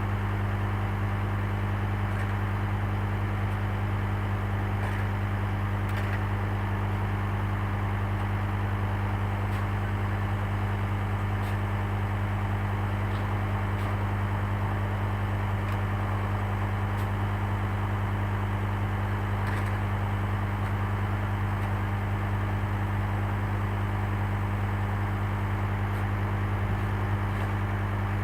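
Engine idling steadily: a constant low drone that never changes speed.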